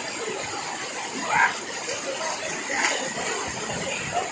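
Steady rushing of a waterfall, with faint voices briefly heard over it about one and a half seconds in and again near three seconds.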